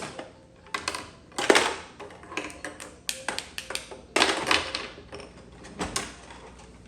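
Hard plastic toy clicking and clattering in a string of irregular taps and short rattles, as a toddler handles the pieces and buttons of a VTech doctor play set.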